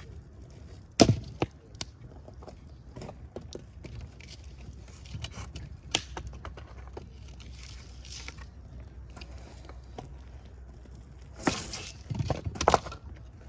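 Fire crackling with scattered sharp pops over a steady low rumble. A loud pop comes about a second in, another near the middle, and a burst of pops comes near the end.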